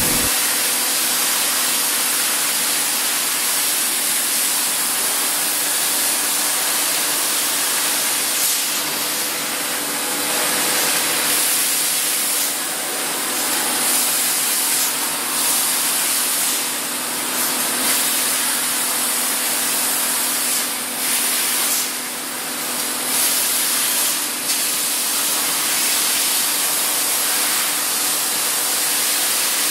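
Factory machinery running: a loud, steady hiss over a steady hum, the hiss easing briefly several times partway through.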